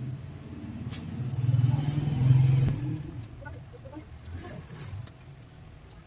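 A motor vehicle's engine, getting louder from about a second in, loudest a little past two seconds, then fading away.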